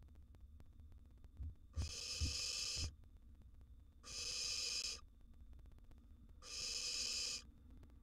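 Barn owl nestling giving its hissing snore calls: three harsh, breathy hisses about a second long each, roughly every two seconds. A few soft thumps come just before the first hiss.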